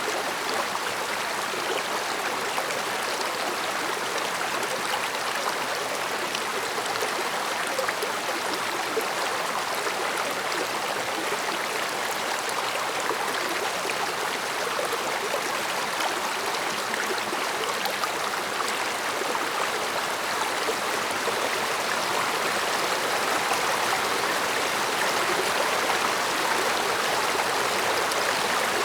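A mountain stream flowing over stones with a steady, soft murmur, growing slightly louder near the end.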